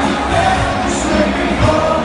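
Loud party music with singing, playing through a beer tent full of dancing people.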